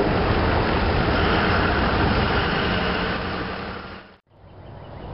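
CSX GP40-2 diesel locomotive running light with a road slug, its engine giving a steady, heavy rumble as it approaches. The sound cuts off abruptly about four seconds in, then comes back much quieter.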